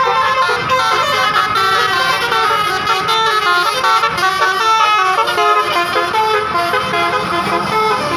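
Bus telolet horn, a multi-trumpet musical air horn, playing a quick melody of short notes that change pitch many times a second.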